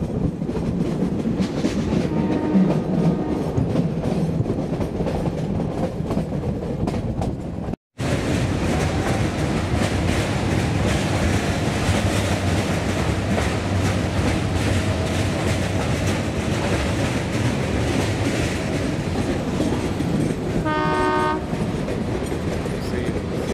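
Metre-gauge passenger train running, heard from an open coach window as it crosses a stone viaduct: steady rumble of the wheels with clickety-clack over the rail joints. The diesel locomotive's horn gives a short blast near the end, and a fainter one sounds about two and a half seconds in.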